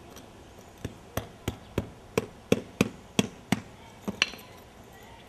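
The white face of a two-headed mallet tapping on brick pavers, about ten sharp taps at roughly three a second with a short pause before the last. The taps settle the neighbouring paver down so the sunken one can be pried up.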